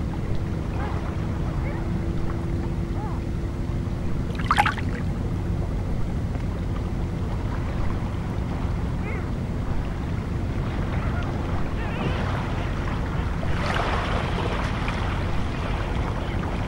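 Sea ambience at a pebble shore: a steady low rumble of water with small waves lapping, a sharp splash about four and a half seconds in, and a longer wash of water over the stones near the end.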